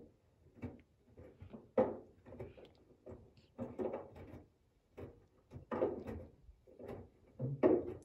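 Washing machine running, the drum tumbling its load with irregular knocks and swishes, about two a second.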